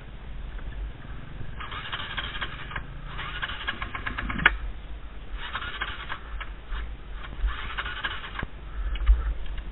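Dirt bike engine running at low revs as the bike rolls slowly along a gravel lane. Several stretches of crunching and rattling over the stones, with one sharp knock about halfway through.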